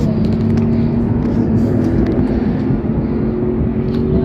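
Steady low engine rumble with a level hum running through it.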